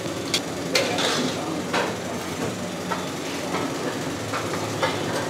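Metal ladle scraping and knocking against a large metal kadai, a few irregular clanks, while chana dal and cashews fry in hot oil with a steady sizzle underneath.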